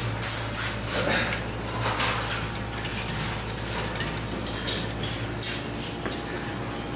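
Marker pen writing on a whiteboard: a quick run of short scratchy strokes in the first couple of seconds, then scattered sharp clicks, over a steady low hum.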